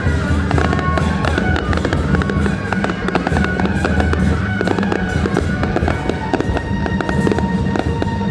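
Fireworks crackling in dense, continuous rapid cracks. Music plays steadily underneath.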